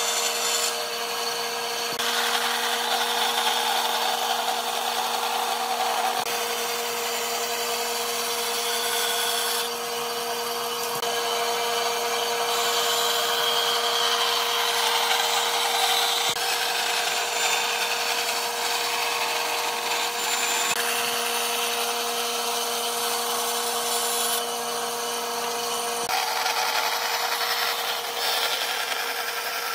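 Bandsaw running with a steady hum while its blade cuts through a pine board. The sound changes abruptly several times.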